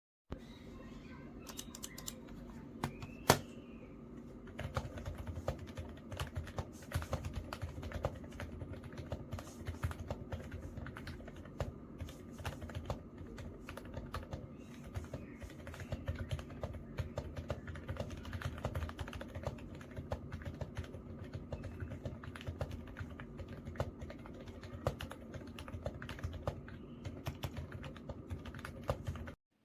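Mechanical keyboard fitted with LongWind WS switches being typed on. A few scattered keystrokes come first, with one sharp loud click about three seconds in, then steady continuous typing from about five seconds on, over a faint steady low hum.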